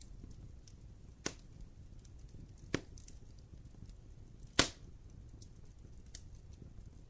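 Wood fire crackling in a fireplace: faint small crackles over a low steady rumble, with three sharp pops, the loudest about two-thirds of the way through.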